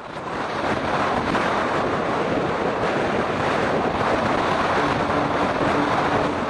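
Heavy wind rushing over the camera microphone on a moving motorbike, a loud steady roar of noise. A low steady tone, the start of music, comes in near the end.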